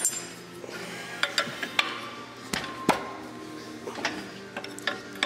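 Irregular sharp metal clinks and knocks, about a dozen in all, from wrenches and a lifting chain handled against a removed cylinder head and its fuel rail.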